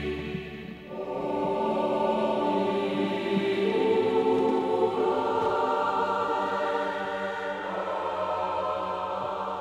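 Dramatic background score carried by a choir singing long, held chords that change every couple of seconds.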